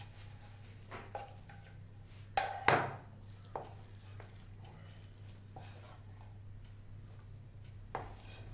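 A metal spoon clinking and scraping against a pan and plate while sticky cooked banana mixture is scooped out: a few separate clinks, the loudest a pair about two and a half seconds in, and one more near the end.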